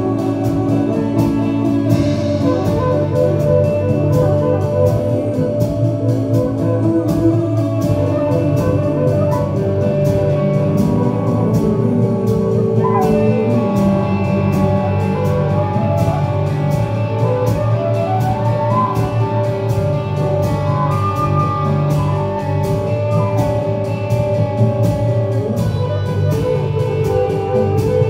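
Live band music: flute over bass guitar and drums, with cymbals ticking steadily through it.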